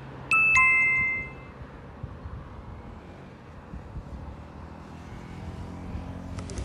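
A two-note descending chime, ding-dong, about a third of a second in, ringing out within about a second. After it comes a faint, steady low hum.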